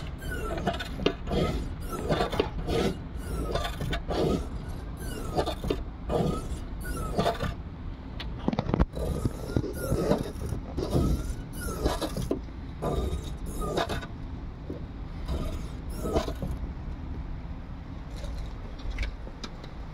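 Defective hood gas strut giving a metallic rubbing squeak from inside as it compresses and extends, in repeated strokes about once a second, then more sparsely and fainter in the last few seconds.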